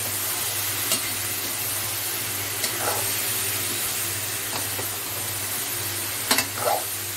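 Boiled chickpeas frying in hot ghee in an aluminium kadhai: a steady sizzle while a metal spatula stirs them, with scattered clinks and scrapes of the spatula against the pan, the loudest near the end.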